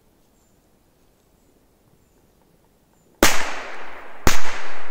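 A Korsar-3 firecracker exploding in two sharp bangs about a second apart, each followed by a short trailing echo, the second the louder; one of the loudest of the firecrackers tested.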